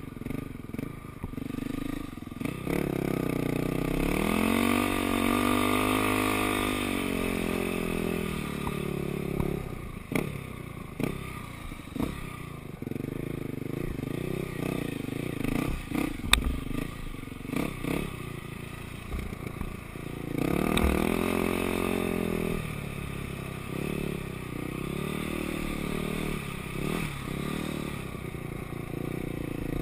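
Dirt bike engine running as the bike rides through sand, its pitch rising and falling in long swells as the throttle is opened and closed, with scattered knocks and clatter from the bike.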